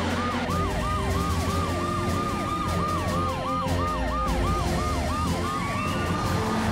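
Sirens of a cartoon police car, fire truck and ambulance on an emergency run. A fast yelp repeats about twice a second, layered with slower rising and falling wails, over background music.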